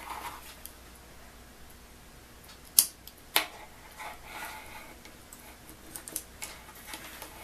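Handling of a battery charger's spring clamps and a multimeter's test leads: two sharp metallic clicks about three seconds in, then rustling of the wires and a few lighter clicks.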